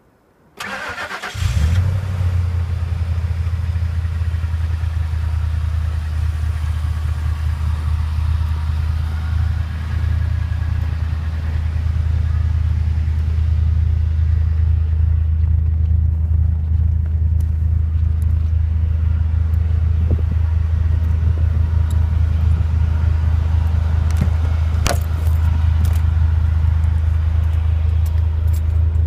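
2003 Ford F-150's 5.4-litre two-valve V8 cold-started: the starter cranks briefly about half a second in, the engine catches within a second and settles into a steady idle. The light knocking of piston slap, which the owner says this engine has when cold, is in the idle.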